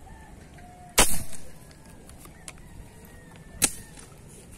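Fishing airgun firing a spear with one sharp, loud shot about a second in. A shorter, quieter sharp crack follows near the end.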